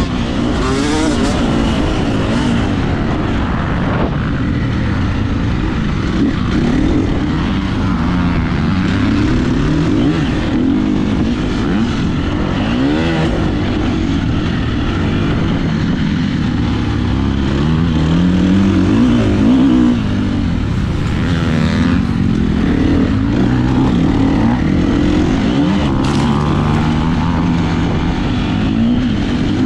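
KTM 350 SX-F four-stroke motocross bike's engine ridden hard, its pitch rising and falling again and again as the rider opens and shuts the throttle and shifts gear. Other dirt bikes are running on the track ahead.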